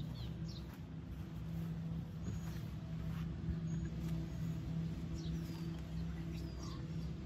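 Birds chirping, a series of short, high, falling calls, over a steady low hum.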